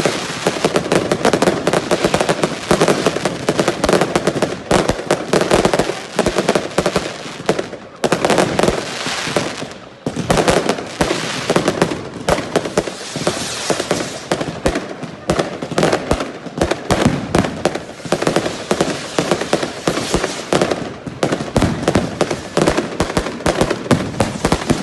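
Many fireworks firing at once: a dense, continuous barrage of rapid bangs and crackles. It eases briefly about eight and ten seconds in, and a wash of high crackling rises around thirteen seconds in.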